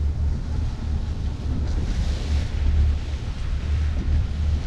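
Wind buffeting the microphone in a heavy low rumble over rushing sea water, with a louder hiss about two seconds in.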